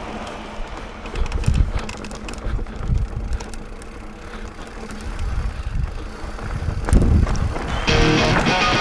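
A 2016 Santa Cruz Hightower mountain bike with 27.5-plus tyres rolling downhill over loose dirt and rocks: a rough rumble of tyres on the trail with knocks and rattles over bumps, and wind on the microphone. Rock music with guitars comes in near the end.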